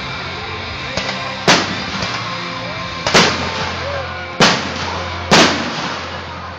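Aerial firework shells bursting: four loud, sharp bangs, irregularly spaced about a second to a second and a half apart, each trailing off in a short echo, with music playing steadily underneath.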